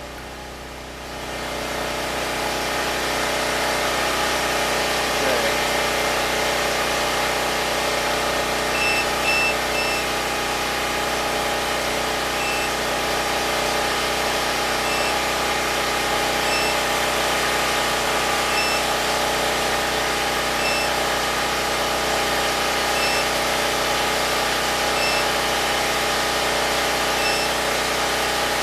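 Predator 6500 generator's engine running steadily. It grows louder over the first couple of seconds, then holds an even hum. From about nine seconds in, short high electronic beeps recur every two seconds or so.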